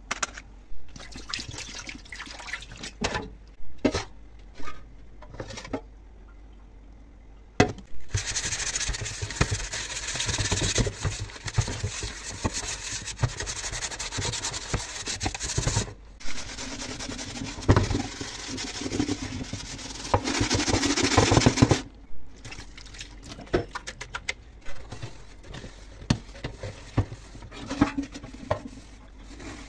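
Scrubbing an enamel-lined pan by hand: scattered knocks and clatters of the pan for the first several seconds, then about fourteen seconds of continuous water and sponge-scrubbing noise, loudest just before it stops. After that come intermittent knocks and cloth rubbing on the pan.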